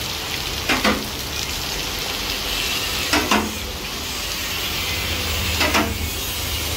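Steady hiss of heavy rain falling on wet pavement, with three brief knocks about every two and a half seconds.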